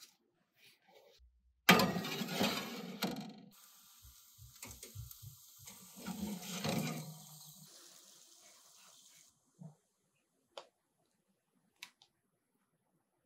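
A metal baking sheet handled at the oven and slid onto the oven rack: two spells of metal scraping and clattering, about two and six seconds in, with a faint steady hiss between them. A few soft clicks follow.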